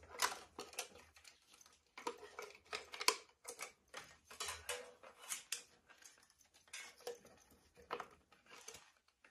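Faint, irregular clicks and rustles of a plastic zip tie and a plastic descaler unit being handled against a pipe, as the tie is passed around the back of the pipe.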